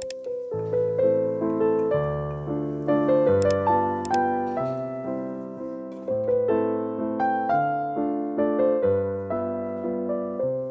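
Background piano music: a gentle melody over a bass line, the notes struck one after another and fading away.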